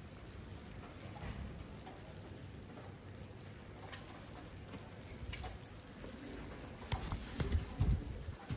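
Steady rain falling and pattering on hard surfaces, with scattered faint drips. Near the end come several louder low thumps with sharp clicks.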